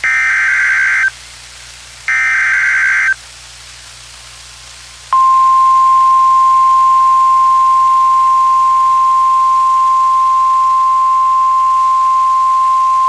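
Emergency Alert System broadcast of a severe thunderstorm warning. It opens with two one-second bursts of the SAME digital header screech about a second apart, with hiss between them. About five seconds in, the NOAA Weather Radio warning alarm begins: a single loud, steady tone that holds.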